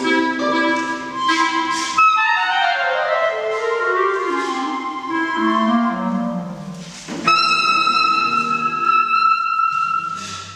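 Contemporary chamber music for bass/B♭ clarinet, viola and cello. A run of notes falls steadily in pitch for several seconds, then a single high note enters sharply about seven seconds in and is held for nearly three seconds.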